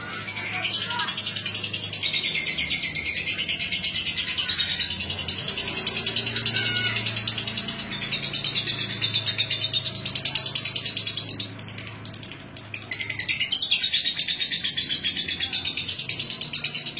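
A young lovebird about six months old singing a long, rapid chattering trill of fast repeated high notes, breaking off for a second or two near the middle and then starting a second long run.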